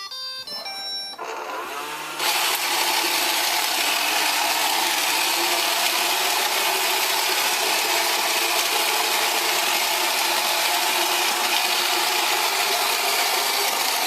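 iRobot Roomba robot vacuum plays a short series of start-up beeps. Its motors then spin up, and from about two seconds in it runs with a loud, steady whir of its vacuum and brushes.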